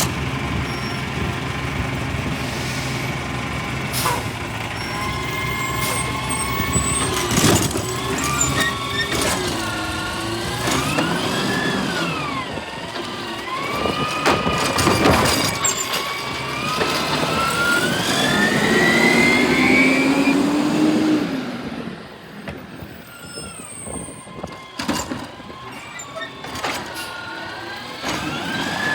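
Garbage truck at work: its engine and whine rise and fall in pitch several times, with sharp knocks and bangs in between, then it settles quieter about 22 seconds in.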